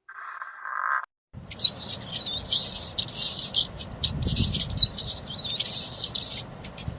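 Many small birds chirping and peeping at once in a dense, high-pitched chatter with quick sliding notes, starting about a second and a half in. It is preceded by a short, mid-pitched sound in the first second.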